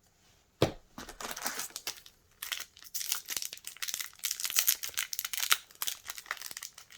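Foil trading-card booster pack wrapper being handled, crinkling and tearing open, with a sharp crackle about half a second in and dense crackling after.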